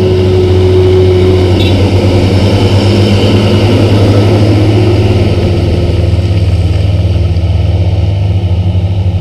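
Hino dump truck's diesel engine running with a steady low drone as the truck drives past close by and pulls away.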